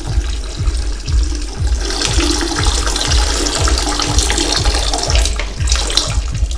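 Dance music with a thumping bass beat, about two beats a second, under a rushing hiss of running water that swells about two seconds in and dies away near the end.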